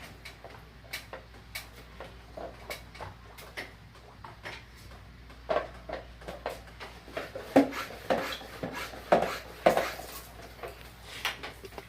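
Irregular clicks and clatters of hard parts being handled, as a wall-mounted air conditioner is worked on during cleaning. They get busier and louder about halfway through, with a few sharp knocks.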